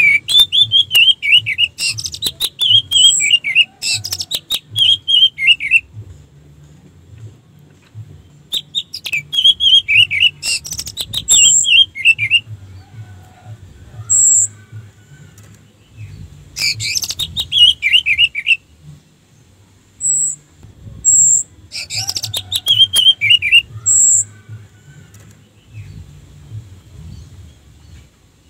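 Orange-headed thrush (anis merah) singing: four bouts of rapid whistled notes that run downward in pitch, separated by pauses of a few seconds, with short, very high single notes in between.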